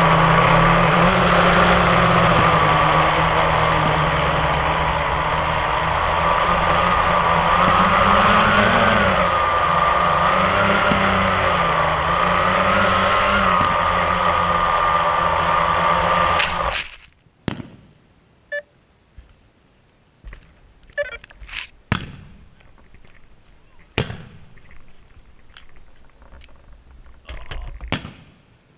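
Quadcopter drone's motors and propellers whirring, their pitch wavering up and down, then cutting off suddenly about 17 seconds in after it has come down to the ground. After that, scattered sharp pops of fireworks.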